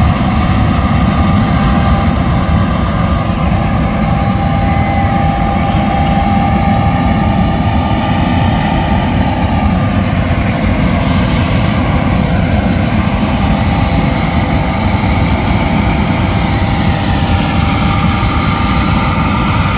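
John Deere S780 combine harvesting soybeans: a steady machine drone with several whining tones that slowly rise and fall in pitch, under heavy wind rumble on the microphone.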